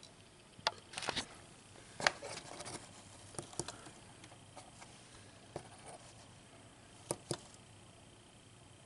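A few light clicks and taps at irregular intervals: a fingertip pressing the small push button on a buck converter's LED voltmeter, switching the voltage it shows.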